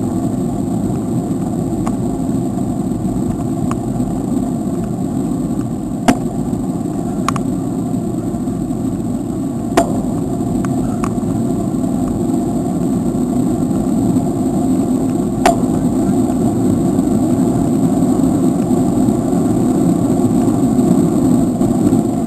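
Steady rush of wind and road noise on a camera carried on a moving bicycle, with a few sharp clicks or knocks along the way.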